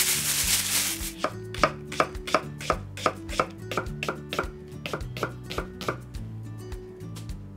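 Chef's knife cutting a Japanese long green onion on a wooden cutting board: a run of sharp taps of the blade on the board, about three a second, stopping near the end. Before the taps, about a second of plastic-bag rustling as marinated chicken is kneaded in its bag.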